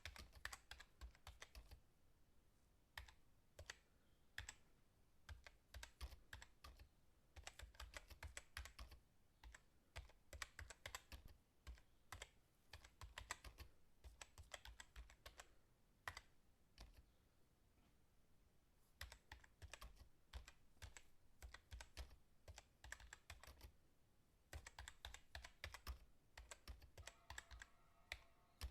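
Fast typing on a computer keyboard: quiet, rapid key clicks in runs, broken by short pauses.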